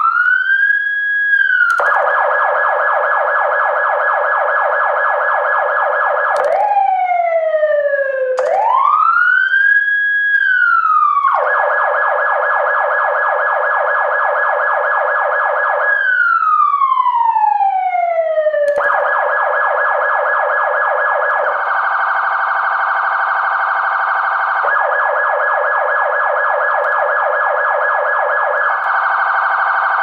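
Electronic emergency-vehicle siren switching between tones: a slow wail rising and falling, alternating with spells of rapid yelp, the tone changing abruptly every few seconds.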